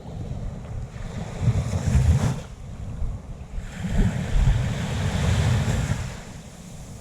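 Waves breaking and washing up a sandy beach, swelling twice, once about a second and a half in and again from about four seconds, the second wash hissing; wind buffets the microphone throughout.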